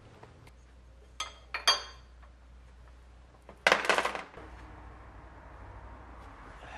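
Metal engine parts and tools clinking while pulleys are fitted: two light ringing clinks about a second in, then a louder metallic clatter about halfway through.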